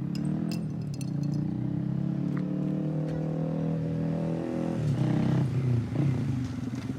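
Honda Grom's single-cylinder engine, big-bored from 125 to 181 cc, running with its pitch easing slowly downward, then louder surges of throttle from about five seconds in.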